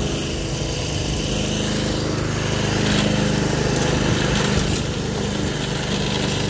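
Toro commercial self-propelled walk-behind mower's small single-cylinder engine running steadily under load while its blade cuts through tall dry grass.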